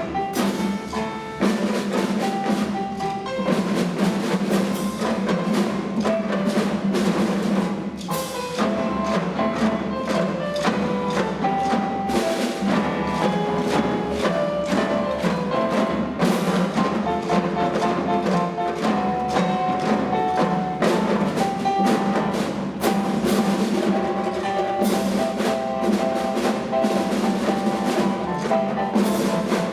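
Music with pitched melody notes over a busy percussion beat of drum and wood-block-like strikes.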